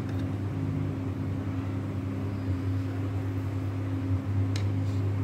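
Steady low machine hum, with one faint click about four and a half seconds in.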